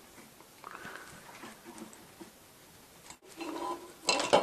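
Hands working a plastic hub and thin wires onto a metal tube: faint rustling and rubbing, a short pitched squeak of plastic about three seconds in, then a brief clatter near the end.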